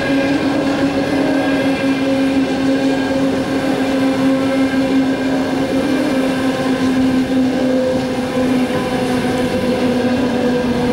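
Passenger train coaches rolling past on the track: a steady rumble with a strong, even hum that sinks slightly in pitch over several seconds.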